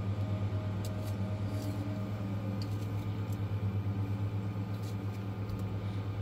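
Steady low mechanical hum, even throughout, with a few faint clicks of a knife cutting a tomato.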